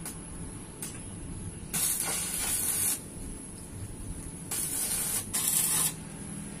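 Electric arc welder hissing in three short bursts as the exhaust pipe is welded on: one a little under two seconds in, lasting about a second, then two back to back about four and a half seconds in.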